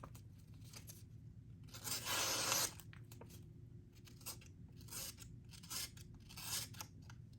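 Kizer Militaw folding knife blade slicing through material: one long cut about two seconds in, then a run of short, quick slicing strokes.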